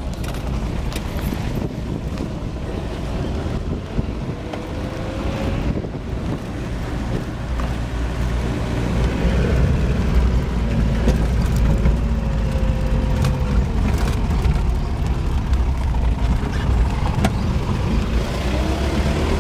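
Car engine and road rumble heard from inside the cabin as the car drives along a rough dirt lane, with occasional clicks and rattles. The rumble grows louder about eight seconds in.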